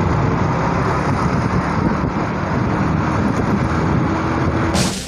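Steady engine and road noise of a vehicle driving along at speed, heard from on board. Near the end it cuts off abruptly and drum-kit music begins.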